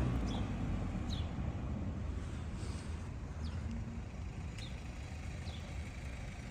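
A vehicle's low engine hum fades away in the first second, leaving a steady low rumble with faint short, high, falling chirps about once a second.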